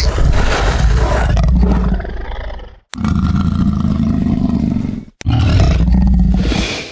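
Demon creature sound effects: three loud, growling monster roars in a row, each cut off abruptly.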